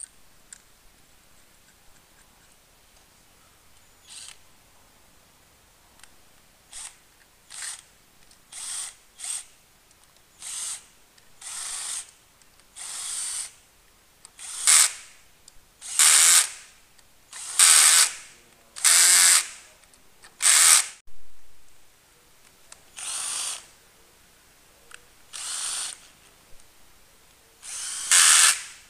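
Power tool run in repeated short bursts, each under a second, about twenty in all: faint at first, loudest around the middle, with a pause of about two seconds before a few more bursts near the end.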